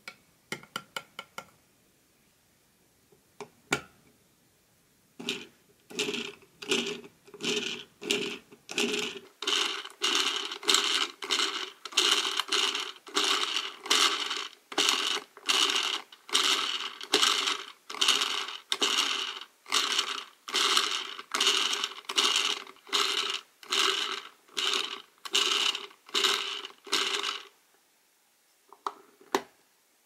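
Plastic gear wheel on the side of a Popin Cookin MokoWash toy washing machine being cranked, a ratcheting plastic clatter in short strokes about twice a second, churning candy powder and water into foam. A few light taps come in the first second; the cranking starts about five seconds in and stops a few seconds before the end.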